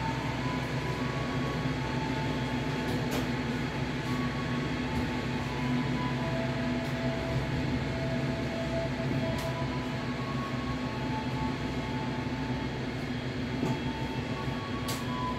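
Passenger train rolling slowly out of a station at walking pace, heard from its rear end: a steady low hum, short squealing tones now and then, and a few sharp clicks.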